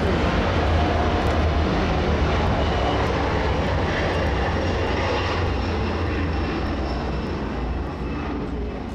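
Boeing 737-300's CFM56-3 turbofan engines at takeoff power as the airliner rolls down the runway, a heavy low rumble with a faint high whine. It fades toward the end as the jet rotates and moves away.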